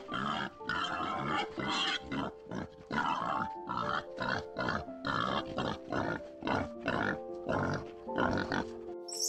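Boars grunting in a fast run of short, rough grunts, about two or three a second. Background music with held notes plays under them.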